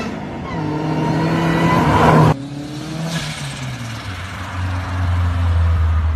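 Car engines revving, rising in pitch, cut off abruptly about two seconds in, then another car's engine picking up and settling into a low steady drone.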